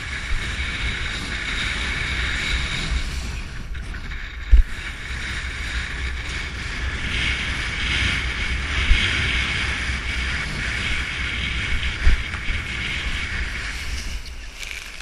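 Wind rumbling on the microphone and water rushing past as a kiteboard skims over choppy water in a 22–25 knot wind, with two sharp thumps, about four seconds in and near twelve seconds.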